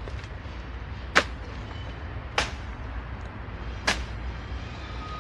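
Three sharp swishing strokes close to the microphone, a little over a second apart, over a low steady rumble from a diesel freight locomotive moving slowly with hopper cars.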